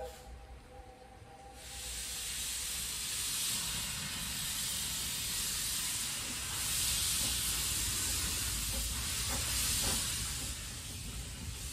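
Narrow-gauge steam locomotive letting off steam: a steady hiss rises in about a second and a half in, holds for about nine seconds, then eases a little.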